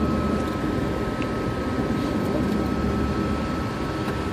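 Car running slowly in traffic, heard inside the cabin: a steady engine and road rumble with a thin, steady high tone over it.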